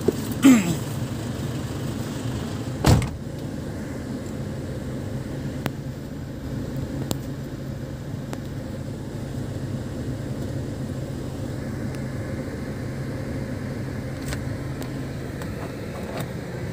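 Motor vehicle engine running steadily with a low hum. A short falling sound comes about half a second in, and a single thump near three seconds.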